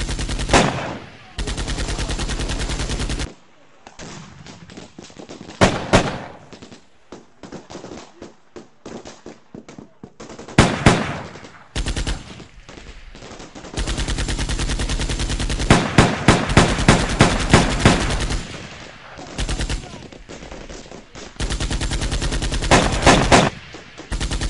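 Automatic gunfire in a night firefight: long sustained bursts of rapid, evenly spaced shots in the first few seconds and again from about halfway on, with a quieter stretch of scattered single shots between them and several louder, closer cracks standing out over the bursts.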